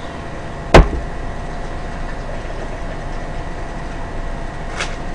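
Steady low hum of room background noise with a faint steady whine. One sharp knock about a second in, and a softer tap near the end.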